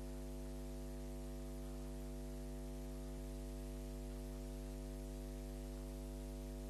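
Steady electrical mains hum with a ladder of overtones, unchanging, over faint hiss; no game sound comes through.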